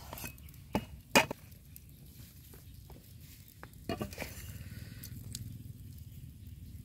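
Cleaver chopping a lime on a wooden chopping board: two sharp knocks about a second in, the second one louder, then a few faint ticks. Near four seconds in there is a short soft spell of sounds as a lime half is squeezed by hand over a wooden mortar.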